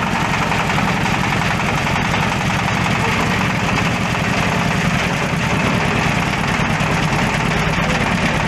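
Waste-fabric shredding machine running steadily under power, a loud continuous mechanical drone with a fast even low pulsing.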